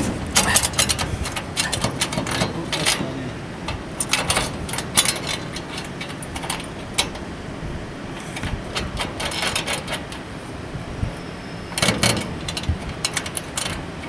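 Aluminium solar-panel mounting rail and L-bracket clicking and scraping as the rail is slid and set on the bracket's lug, with a denser run of sharp clicks near the end.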